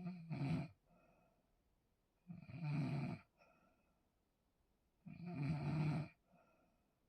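A person snoring very loudly in sleep: three snores about two and a half seconds apart, each lasting about a second.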